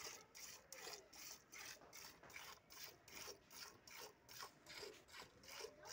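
Hand-milking a cow: jets of milk squirting into a small steel pot in an even rhythm of short hissing strokes, about three a second.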